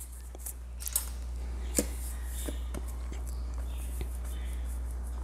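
Light clicks and taps of a metal spoon against a cardboard salt canister as salt is scooped out, a few separate clicks over a steady low hum.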